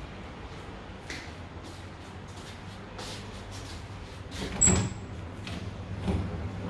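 Interior door with a round metal knob being opened: a few faint taps, then one sharp metallic latch click about two thirds of the way in and a softer knock after it, over a low steady hum.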